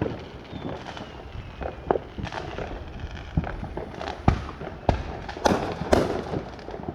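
Fireworks going off all around: a string of sharp bangs and pops at uneven intervals, the loudest a few seconds in, with a faint descending whistle near the start.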